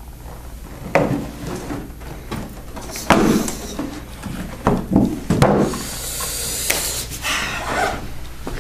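A large cardboard box being handled on a desk: several knocks as it is brought up and set down, then a few seconds of scraping and rustling cardboard as the lid is opened, near the end.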